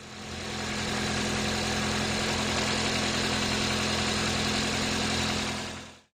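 Toyota car engine idling steadily after its cylinder-one ignition coil was replaced to cure a P0301 misfire. It swells over the first second and fades out near the end.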